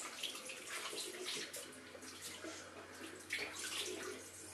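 Water running from a tap and splashing into a basin in irregular splashes, with a faint low hum starting about a second and a half in.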